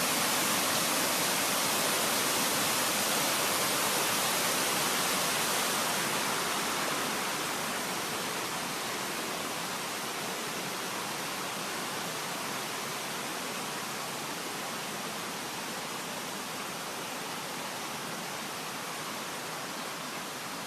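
Waterfall rushing: a steady, even hiss of falling water that eases a little after about seven seconds.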